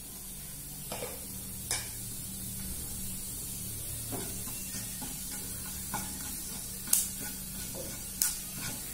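Fennel seeds sizzling gently in hot oil in a non-stick pan. A wooden spatula stirs them, knocking against the pan a couple of times about a second in and a few more times near the end.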